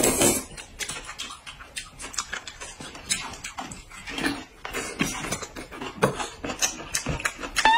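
Close-miked eating: hot and sour noodles slurped from the bowl, with chewing and wet lip-smacking in many short, quick smacks. A rising whistle-like tone starts right at the end.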